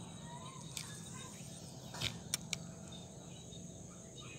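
Steady high-pitched chirring of insects, with a sharp click about a second in and three more in quick succession around two seconds in.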